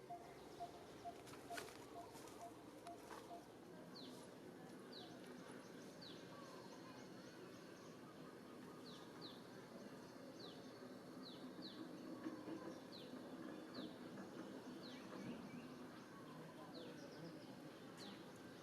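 Faint outdoor ambience with a bird giving short, high chirps that sweep downward, repeated about once a second from a few seconds in. In the first few seconds a quick series of lower pips, about three a second, runs alongside.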